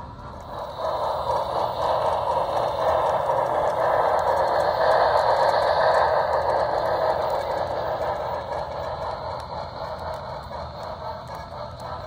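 HO scale model train running past on the track, its wheels clattering and rattling over the rails. The running noise swells about a second in, is loudest around the middle, and fades again toward the end.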